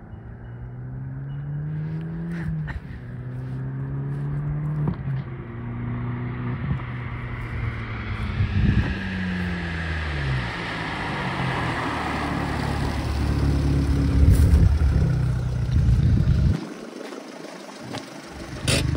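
Fiat 500 Abarth's turbocharged 1.4 T-Jet four-cylinder, stage 1 remap with a stainless-steel silencer, accelerating hard through several gears, its pitch rising and falling back at each shift and growing louder as the car approaches. Near the end it lifts off sharply with a few exhaust pops, then runs low as the car rolls up.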